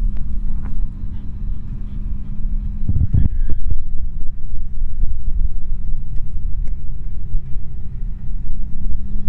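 Car driving on the road, heard from inside the cabin: a steady engine drone with road rumble. There is a short louder knock about three seconds in.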